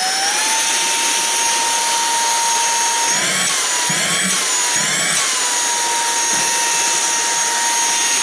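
SERVOMASTER cordless handheld car vacuum cleaner running at its single speed. The motor finishes spinning up in the first half second, then holds a steady high whine over a rush of air, its pitch wavering up and down three times around the middle.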